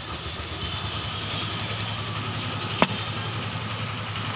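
A steady low mechanical hum, like a nearby engine or passing traffic, with one sharp click a little under three seconds in.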